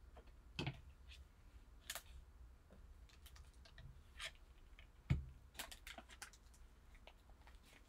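Trading cards in hard plastic holders being handled and set down on a tabletop: scattered light clicks and taps. The heaviest tap, with a dull thud, comes about five seconds in.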